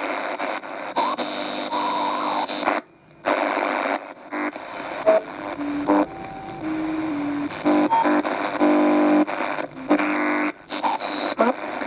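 Souness SNI-F100 portable radio being tuned across the band through its speaker: static and hiss, with short whistles and snatches of music from stations that come and go as the dial turns, and a brief dropout about three seconds in. The stations between are weak, typical of this set's poor reception, where only one local station comes through strongly.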